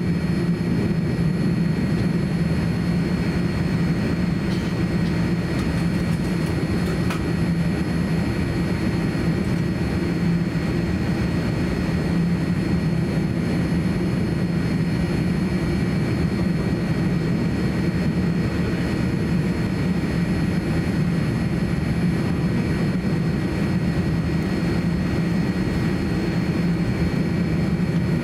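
Steady cabin noise inside a Boeing 787-9 on the ground before takeoff: its GEnx engines running at idle under a constant low hum, with a few faint steady whines above it.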